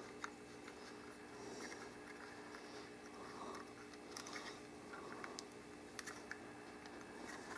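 Faint scattered clicks and light rattles of a camcorder being handled and adjusted on its mounting rig, over a low steady room hum.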